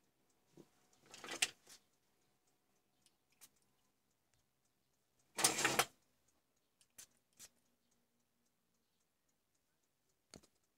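Fingers handling a small plastic iPhone charger plug: two short rubbing rustles and a few light clicks, over faint steady ticking.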